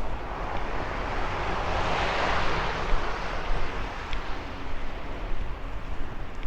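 A vehicle driving past: a swell of tyre and road noise that builds to a peak about two seconds in and then fades, over a steady low rumble of wind and street noise.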